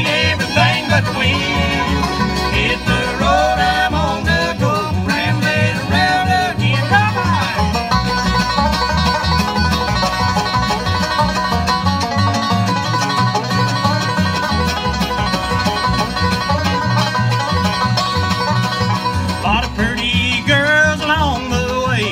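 Bluegrass band playing an instrumental break live: fiddle, five-string banjo, acoustic guitar and upright bass, with the fiddle and the banjo taking the lead in turn.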